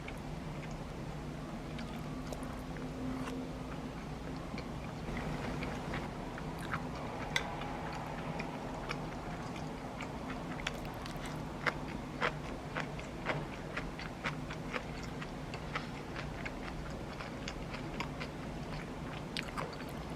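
Someone eating: chewing, with irregular sharp clicks of utensils against dishes, over a steady low hum.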